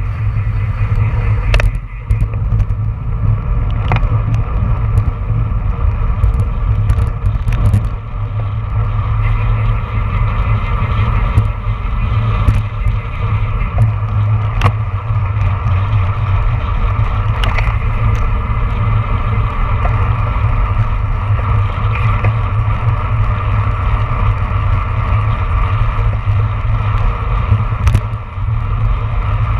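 Wind rushing over a handlebar-mounted action camera on a road bike ridden at about 25 to 30 mph, with tyre and road noise underneath. Occasional sharp clicks and knocks stand out.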